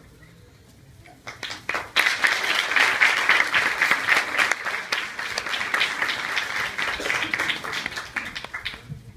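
Audience applauding: a few scattered claps about a second in, swelling to full applause by about two seconds, then dying away near the end.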